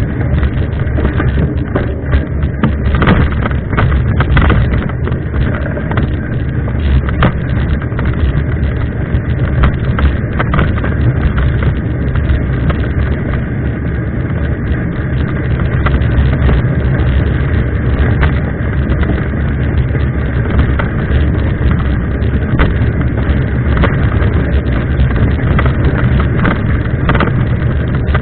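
Wind rushing over the microphone and a mountain bike rattling over a rough trail: a steady low rumble with many small knocks.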